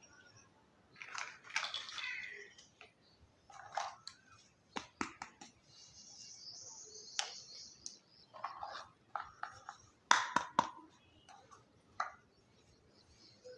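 Small plastic toy kitchen pieces being handled, with scattered sharp clicks and taps and short bursts of crinkly rustling. A high hiss runs for about three seconds in the middle.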